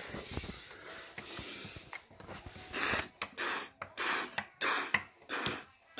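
A person breathing hard or coughing close to the microphone: a series of short, hissy bursts, louder and more frequent in the second half.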